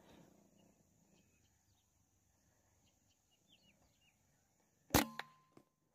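Faint bird chirps, then about five seconds in a single sharp crack of a PCP air rifle firing, followed a quarter second later by a second, weaker crack and a small click.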